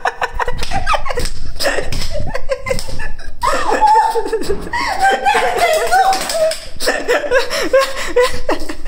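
A young woman laughing in quick, repeated bursts.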